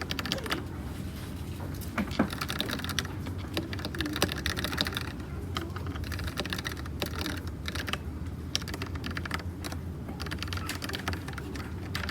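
Fast, continuous typing on a Dugad x Thinkway mechanical keyboard with red (linear) switches: a dense stream of key clacks with no pauses longer than a moment.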